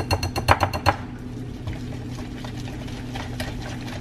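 Wire whisk clinking rapidly against a glass mixing bowl as thick pancake batter is beaten, about eight strokes a second; the clinking stops about a second in, leaving only faint occasional ticks over a steady low hum.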